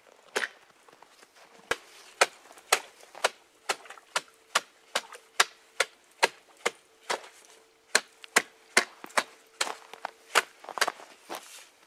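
Ice being chopped by hand at a beaver trap site: a steady run of sharp, regular strikes, about two to three a second.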